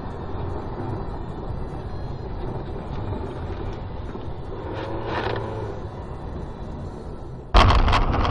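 Steady road and engine rumble of a car driving on a snowy highway, heard from inside the cabin through a dashcam microphone. About five seconds in a brief louder sound rises and falls over it, and near the end the noise jumps suddenly much louder with a run of sharp knocks.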